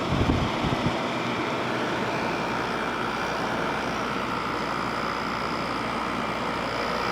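2006 General Electric 5150 BTU window air conditioner running with its fan and compressor on: a steady rush of air over a low hum, with a faint steady whine higher up. The compressor runs smoothly and sounds healthy. A few low knocks come in the first second.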